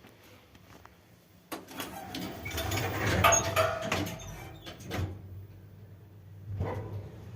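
A ShchLZ passenger elevator's automatic sliding doors running, with clicks and a couple of knocks, while a low steady hum from the elevator's drive comes in.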